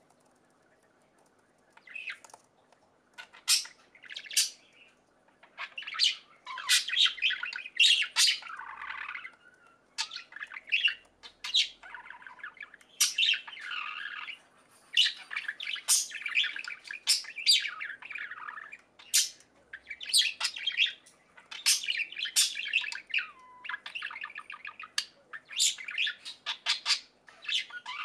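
Budgerigars chirping and squawking in quick, irregular bunches of short sharp calls, starting about two seconds in, over a faint steady hum.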